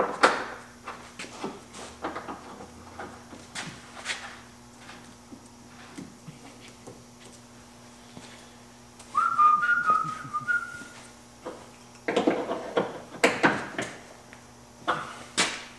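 Scattered clicks and clinks of hand tools and suspension parts being handled under a car, a short whistled tune of a few notes about nine seconds in, then a run of louder metallic clanks near the end, over a steady faint hum.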